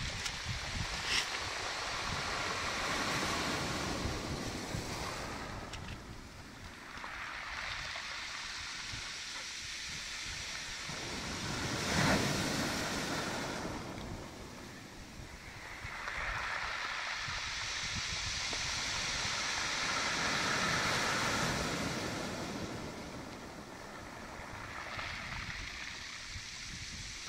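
Sea waves breaking and washing up over a pebble beach, the surf hiss swelling and fading in several slow surges, the loudest about twelve seconds in.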